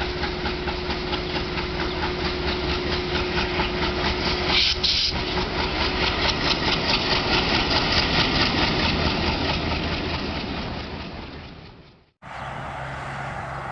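A train sound with hiss and a fast, regular beat of about five strokes a second. It fades out and stops about twelve seconds in. Just after, the steady low hum of a GE WDG-4G diesel locomotive starts abruptly.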